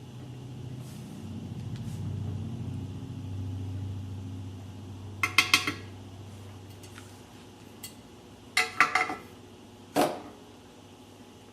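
Low mains hum from the 862D+ soldering station's transformer, swelling for a few seconds and then fading. Then a few short, sharp metallic clinks and rattles: a cluster about five seconds in, another near nine seconds, and one more at ten.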